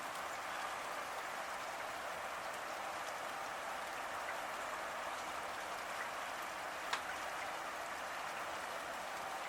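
Steady rain falling, a dense even patter of drops, with one sharper drop tick about seven seconds in.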